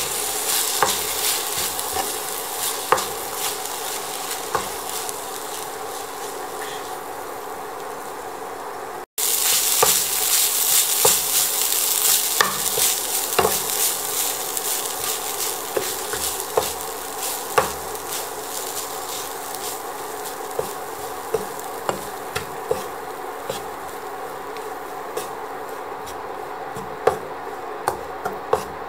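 Fried rice sizzling in a non-stick frying pan as a wooden spatula stirs and tosses it, with frequent light scrapes and knocks of the spatula against the pan. The sound breaks off for an instant about nine seconds in, then carries on.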